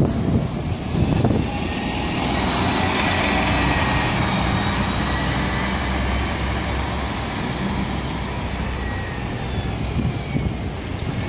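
A 2017 New Flyer XN40 Xcelsior city bus running on compressed natural gas, driving away after passing close, its engine rumble and road noise slowly growing fainter.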